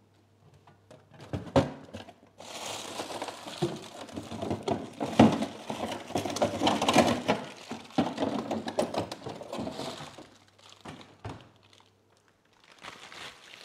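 A plastic bag of ice cubes being handled: crinkling and rustling of the plastic, with a few knocks and thuds. There is a sharp knock about a second and a half in, dense crinkling from about two and a half to ten seconds, and more knocks a little after that.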